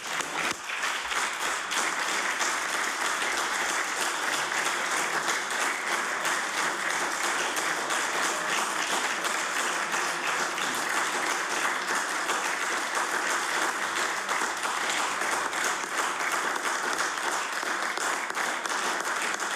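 Sustained applause: many people clapping steadily and densely, with no let-up.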